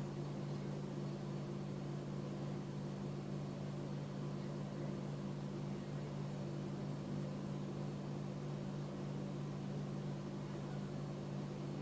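Steady low hum with a light hiss and nothing else: constant background noise of the room or recording, with no events.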